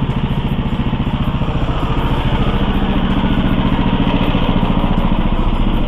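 Single-cylinder petrol engine of an Oka walk-behind tractor running steadily at low speed, its pitch rising slightly about two seconds in.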